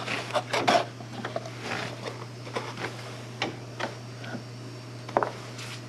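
Scattered light clicks, taps and knocks of gloved hands handling the power steering pump's hoses and nearby engine-bay parts. They are busiest in the first second, with a sharper click about five seconds in, over a steady low hum.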